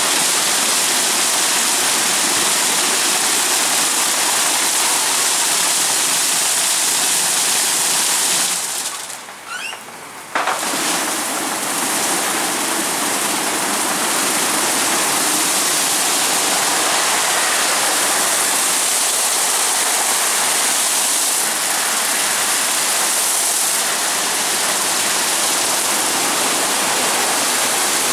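Water spraying and rotating wash brushes of a 2019 WashTec Combiwash gantry car wash working over a car: a loud, steady rushing hiss. About a third of the way through it falls away for a couple of seconds, then comes back suddenly.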